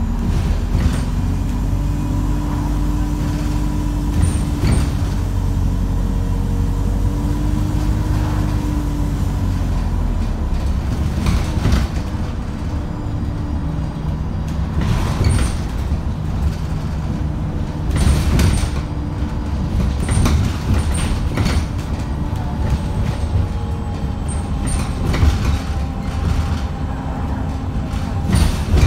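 ADL Enviro350H bus engine running hard, heard from inside the saloon: a steady low drone with a whine that drifts in pitch, and scattered knocks and rattles from the bodywork. The uploader calls the engine thrashy and unhealthy.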